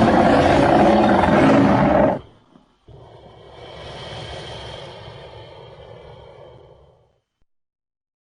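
Designed creature roar for a Purussaurus, an extinct giant caiman: a loud roar that cuts off about two seconds in, then a second, quieter call lasting about four seconds that swells and fades out, followed by silence.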